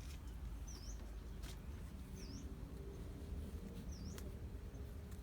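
A small bird giving a short, high chirp three times, about a second and a half apart, over a low steady rumble of wind on the microphone.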